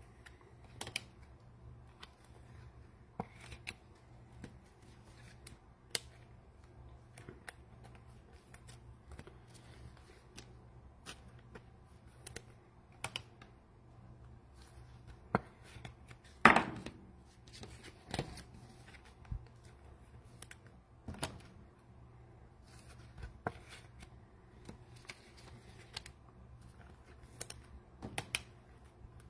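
Trading cards being handled, shuffled and set down: scattered light clicks and taps, with one louder snap a little past halfway, over a faint steady hum.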